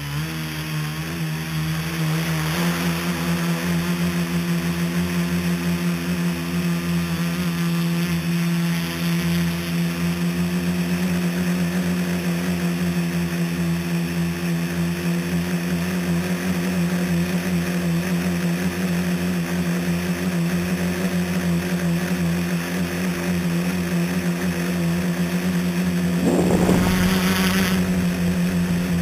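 Electric motors and propellers of a scratch-built tricopter, heard from its onboard camera: they spin up with a rising whine over the first couple of seconds, then hold a steady buzzing hum in flight. About 26 seconds in there is a brief louder rush.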